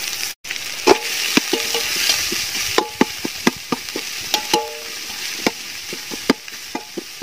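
Sliced onions sizzling in hot ghee in a large metal pot while a steel ladle stirs them, knocking and scraping against the pot with frequent clinks, some of which ring briefly.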